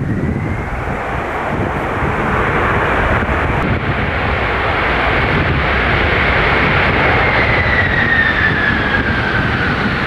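Jet engines of a Boeing 747-400F freighter running as it rolls out on the runway after landing. There is a steady, loud roar with a high whine that climbs slightly, then falls in pitch through the second half as the jet moves past.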